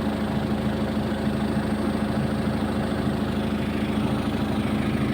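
An excavator's diesel engine running steadily at an even speed, with a constant low hum and no revving.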